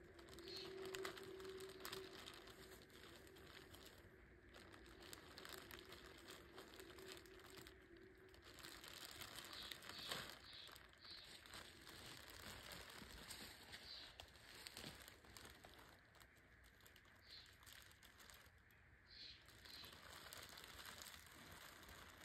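Faint crinkling and rustling of a black plastic trash bag as gloved hands pull and shift it on and off over a wire trap cage.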